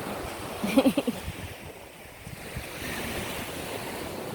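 Ocean surf washing on the beach, with wind on the microphone. A brief pitched vocal sound comes about a second in.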